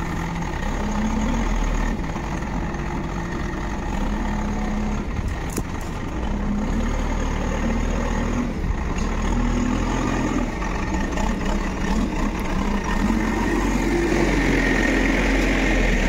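Backhoe loader's diesel engine running, its note lifting briefly about every two seconds as it works. It grows a little louder near the end.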